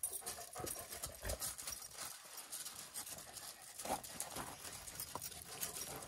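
Dogs' paws and a person's shoes moving on loose gravel: scattered, irregular light crunches and scuffs as the dogs mill about and sniff.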